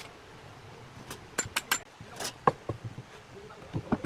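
Steel pipe clamps being handled and set across a wooden panel on a workbench: a quick series of sharp metallic clicks and clinks with a brief ring, a scrape, then a cluster of knocks of metal and wood near the end.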